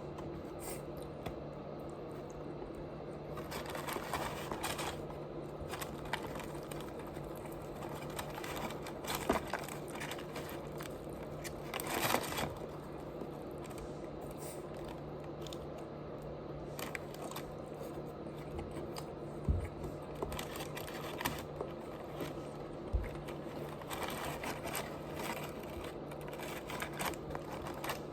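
Close-miked eating sounds: a person chewing and munching food, with scattered small clicks and smacks and a few louder moments, over a steady low hum.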